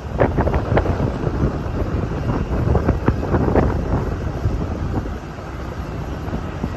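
Airliner rumbling past, mixed with wind buffeting the microphone, easing slightly about five seconds in.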